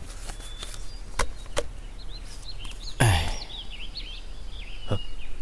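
Outdoor ambience with small birds chirping repeatedly from about two seconds in, over a low steady hum. A few light clicks come early, and a louder knock comes about three seconds in.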